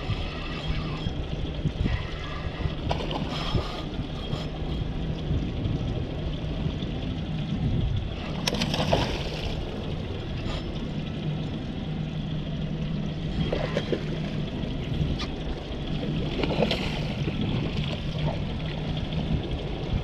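Hooked mahi-mahi thrashing at the surface beside the boat: several short splashes of churned water, the loudest about nine seconds in, over a steady low hum.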